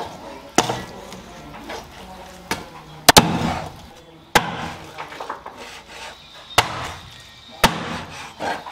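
Meat cleaver chopping through a fish's body and backbone onto a plastic cutting board: about six sharp chops a second or two apart, one a quick double strike, with the rustle of the fish being handled between them.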